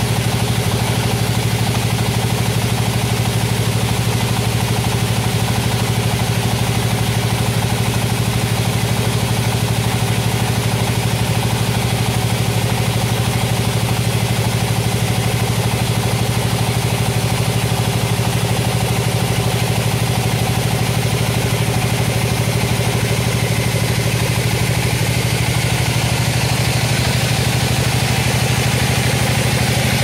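Band sawmill's engine running steadily at an even speed, with a constant low hum.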